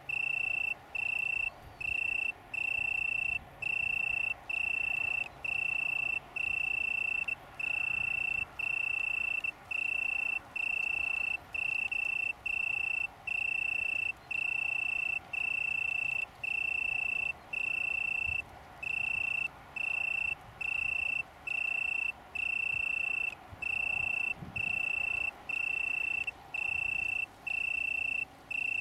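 Male Italian tree cricket (Oecanthus pellucens) singing: a clear, steady, high-pitched trill broken into bursts about half a second long with short gaps, repeated evenly.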